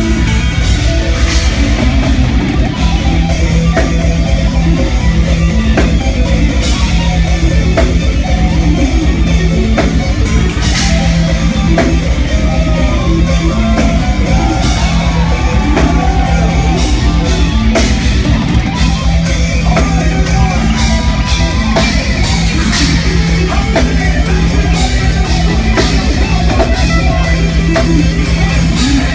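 Melodic death metal band playing live, an instrumental passage: fast drum kit with rapid kick drum under distorted guitars and bass, with a lead guitar melody weaving over it through the middle.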